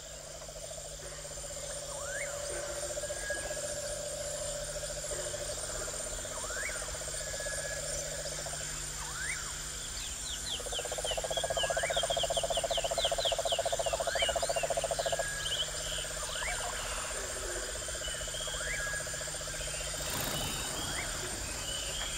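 Nature ambience of frogs and insects: a steady pulsing trill that grows louder for a few seconds in the middle, over a high insect chirring, with a short rising call repeated every couple of seconds. A quick run of high chirps comes in the middle, and a short rushing noise comes near the end.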